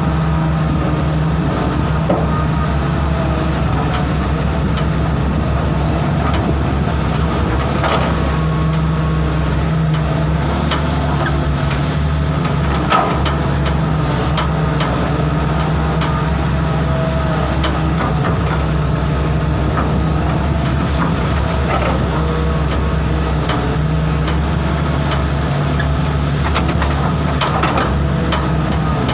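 Sumitomo 280FJ1 excavator's diesel engine running steadily, with a few short knocks over it.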